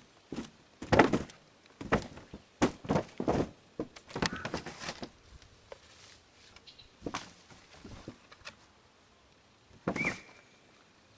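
Irregular knocks and thuds of footsteps and handling on a camper roof, coming quickly at first, then more sparsely. A short squeak about ten seconds in.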